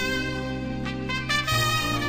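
Recorded instrumental music: a trumpet playing long held notes over accompaniment with a steady bass line. It moves to new notes about a second in and again near the end.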